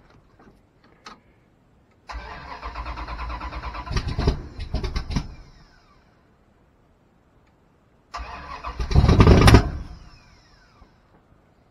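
A 408 stroker V8 in a Dodge D100 drag truck being started twice after its oil pump was replaced. Each time the starter cranks with a fast even chug, the engine fires briefly and louder, then stops and winds down. The second attempt is the louder.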